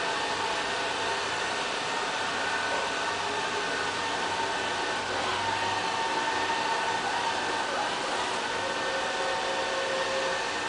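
LL-A320 robot vacuum cleaner running: a steady whir of its motor and suction, with faint whining tones that shift in pitch now and then.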